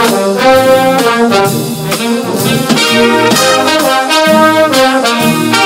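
Loud background music: a brass-led orchestral tune of held notes changing every half second or so.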